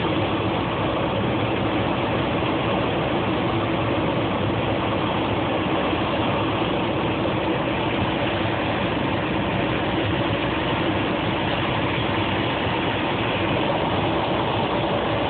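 Engine and propeller of a single-engine high-wing light aircraft running steadily, heard from inside the cabin as an even drone.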